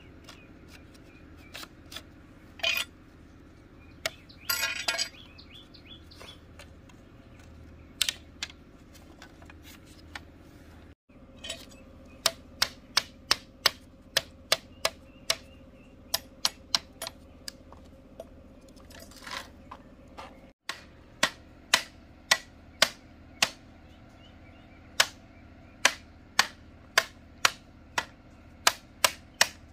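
Sharp, short knocks, scattered at first and then in steady runs of about two to three a second, with a brief rasping scrape early on.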